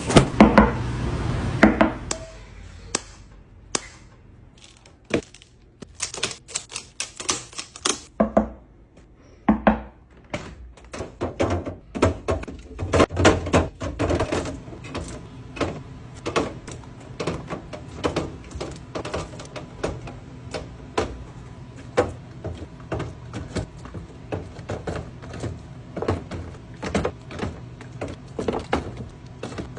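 A long run of small, sharp clicks and taps from hard objects being handled and set down, sparse at first and then several a second. It opens with about two seconds of loud rustling noise.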